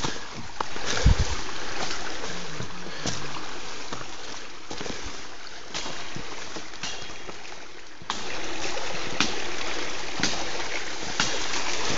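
Creek water rushing over rocks, a steady hiss that grows louder about eight seconds in, with a few light knocks of boots stepping along a fallen log.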